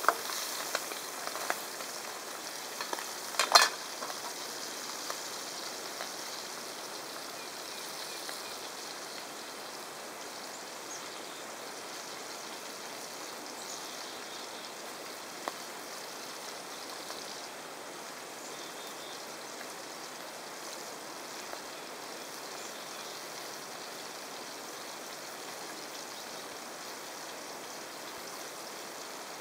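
Trout frying in a pan on a camp stove, a steady sizzle. In the first few seconds a spatula clicks against the pan, with one sharp clack about three and a half seconds in.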